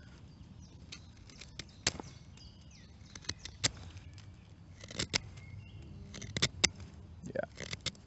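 Leatherman C33X folding knife whittling a stick: a series of short, sharp cutting strokes as the blade shaves the wood, unevenly spaced and coming more often in the second half.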